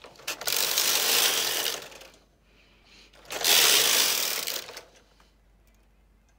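Carriage of a Brother KH260 chunky knitting machine pushed along the needle bed twice, one pass after the other. Each pass is a loud rushing clatter of about two seconds as the carriage knits a row.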